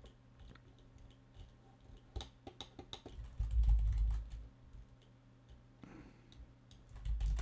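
Scattered small clicks from a computer mouse and its scroll wheel, with two low dull thumps, one about halfway through and one near the end.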